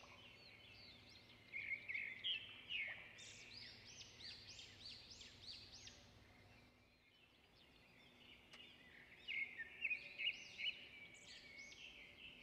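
Small birds chirping in quick, overlapping rising-and-falling calls, loudest in two spells a few seconds apart, over a faint steady hum.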